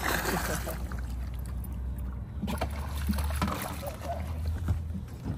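Splashing and knocks on a small fishing boat as a hooked fish is landed, over a steady low rumble. The noisy bursts come right at the start and again about two and a half seconds in.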